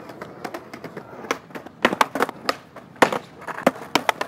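Skateboard rolling on concrete paving, then sharp clacks of the board being popped, flipped and landed in flatground tricks, several in quick succession from about two seconds in.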